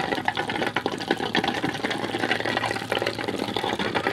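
A flock of Muscovy ducks dabbling their bills in a shallow bowl of water, making a dense, irregular run of small splashes and clicks.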